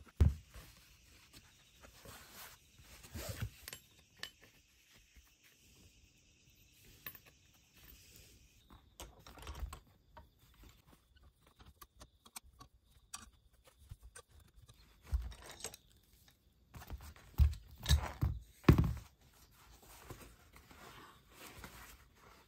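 Intermittent small clicks, rustling and knocks of objects being handled, with a sharp knock right at the start and a cluster of louder knocks near the end.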